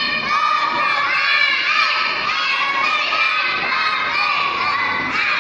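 A group of preschool children reciting a choral-speaking piece loudly in unison, many young voices chanting together.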